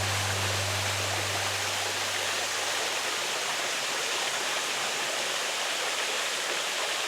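Waterfall rushing steadily, the even hiss of water pouring over rock.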